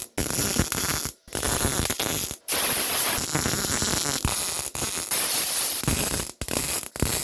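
Electric welding arc crackling on the thin steel body panel of a car's windscreen pillar, in a string of bursts about half a second to two seconds long with brief breaks between them, as a repair piece is welded in.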